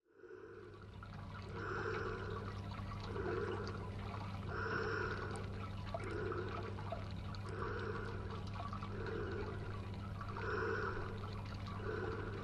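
Home aquarium's filter and pump running: a steady low hum under trickling water, with a soft gurgle about every second and a half.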